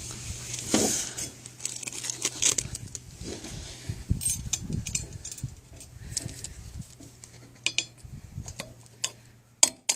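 Metal tools and universal joint parts clinking and scraping as the joint's bearing cups are worked into the propeller shaft yoke, ending in a quick run of sharp metallic taps.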